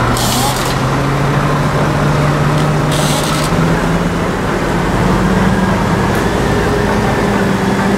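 A Scania R500's six-cylinder diesel engine running as the tractor unit drives slowly at low speed, its engine note shifting in pitch partway through. Two brief hisses are heard, one at the start and one about three seconds in.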